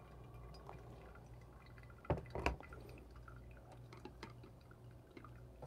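Pour-over coffee dripping from the filter cone into a glass server: faint scattered ticks over a low steady hum. Two short knocks come a little after two seconds in.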